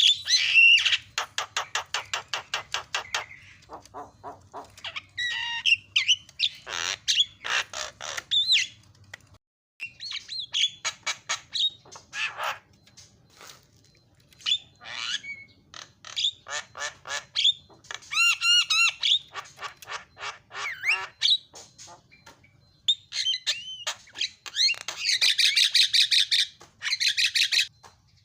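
Javan myna singing a fast, harsh chatter: phrases of rapid clicking notes, squawks and a few clear whistles, broken by short pauses.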